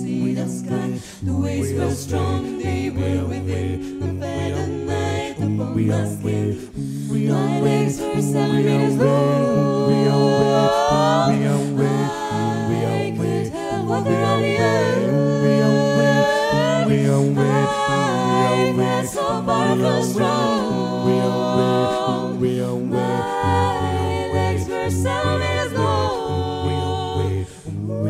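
Five-voice a cappella group singing in close harmony through stage microphones: a low sustained bass line moving in steps, with higher voices entering about seven seconds in on melody lines that slide up and down.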